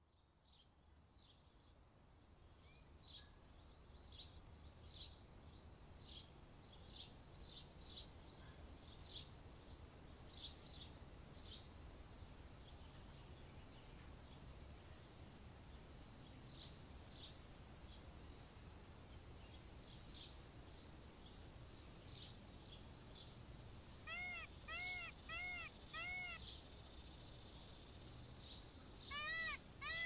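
Indian peafowl calling: four short, arched, nasal calls in a quick series about two-thirds of the way through, and a louder cluster of calls near the end. Small birds chirp in high, short notes through the first half, over a low steady background hum.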